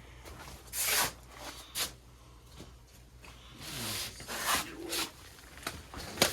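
Handling noises: a series of short rustling and scraping sounds, some sharp and some drawn out, over a faint low hum that fades about halfway through.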